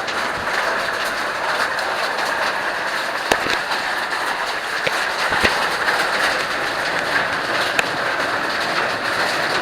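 Steady rush of falling water from a heavily running waterfall, with a couple of sharp clicks a little past a third and halfway through.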